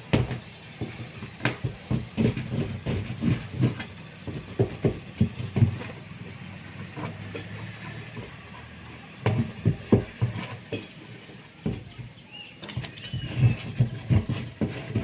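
Irregular knocks, taps and scrapes of hands working with tools and fittings, in clusters with brief pauses, with a few faint high bird chirps in the middle.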